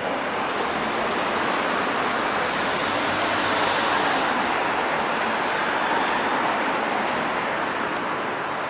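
Steady wash of city street traffic noise, swelling slightly toward the middle and easing off near the end.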